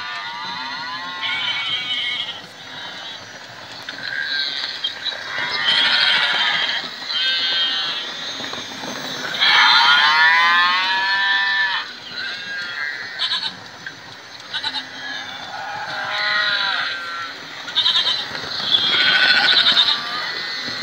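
Recorded goat and sheep bleats repeating from the electronic sound units of toy model-railway livestock wagons, one call after another and sometimes overlapping, with the loudest calls about ten seconds in and near the end.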